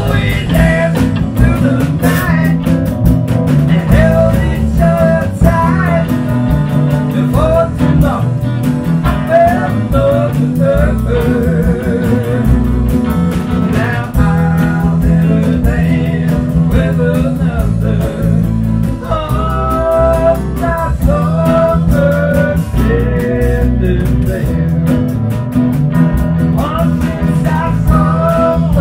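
Live band music: guitar, bass and drums playing a steady beat, with a bending melody line over them.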